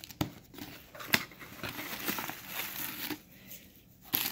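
Cardboard box flaps being pulled open, with a few sharp clicks and creaks, the loudest about a second in, followed by purple crinkle paper shred rustling and crackling as small hands dig into it.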